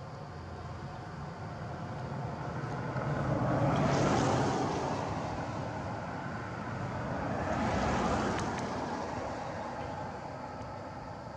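Road traffic: two vehicles pass one after the other. The noise swells to a peak about four seconds in, eases off, then peaks again about eight seconds in.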